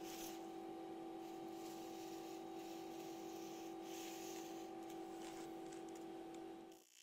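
A steady two-tone hum with faint rustling, which cuts off suddenly just before the end.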